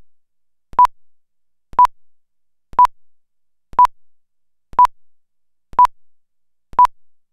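Countdown leader beeps: a short steady-pitched electronic beep once every second, seven times, with silence between.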